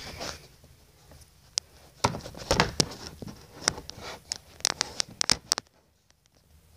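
Handling noise from a phone camera being carried and moved about: low rustling, then from about two seconds in a quick run of sharp taps and knocks against the phone, which stops shortly before the end.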